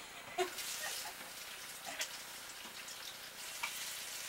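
Kitchen tap running into a sink: a steady hiss of water that starts about half a second in.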